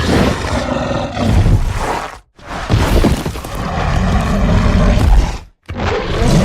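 Carnotaurus dinosaur roar sound effects: three separate deep growling roars, the first about two seconds long, the second about three seconds, and the third starting near the end, each cut off by a brief silence.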